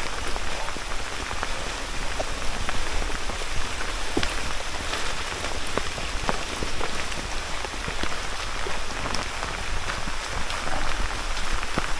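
Heavy rain coming down steadily, with many single drops tapping sharply close to the microphone.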